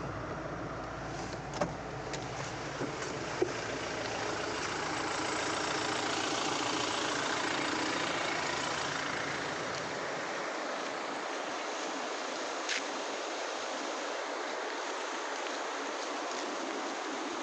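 Floodwater rushing in a stream in spate after hours of heavy rain: a steady, dense rush of water that swells a little in the middle. Two brief knocks sound in the first few seconds.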